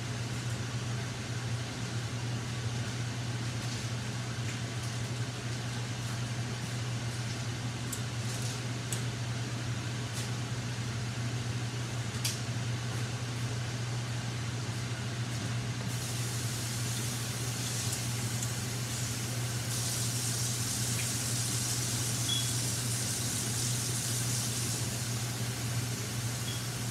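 Oxtail in tomato paste sizzling and crackling in a hot pan, the hiss growing louder about two-thirds of the way through, over a steady low fan hum.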